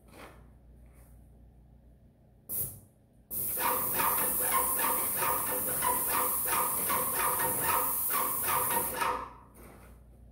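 Paint spray gun spraying trim boards: a short burst about two and a half seconds in, then a continuous hiss for about six seconds, with a rapid rhythmic pulsing, about four a second, beneath it.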